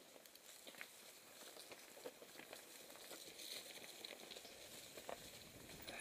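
Mountain bike tyres rolling over dry leaf litter and loose ground on a forest trail: faint continuous crackling and rustling with many small clicks.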